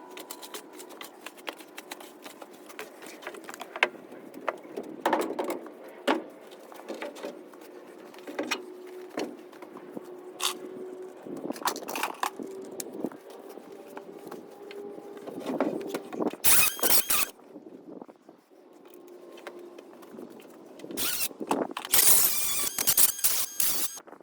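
Knocks and clatter of wooden shed boards and framing being worked on, with a squeal that comes and goes throughout and two louder, noisier bursts, the last near the end.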